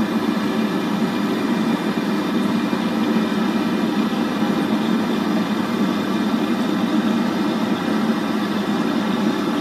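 Gas-fired wok burner at a street stall running with a steady low rush, fed from an LPG cylinder.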